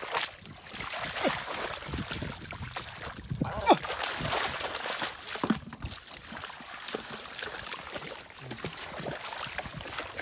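Shallow muddy water splashing and sloshing with many short irregular splashes as hands and bare feet grope through it.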